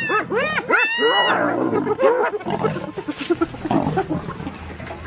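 Spotted hyenas giggling: a fast series of high, rising-and-falling notes, about three a second, that gives way after about a second to a rougher jumble of growls and snarls as hyenas and a lion squabble over a carcass.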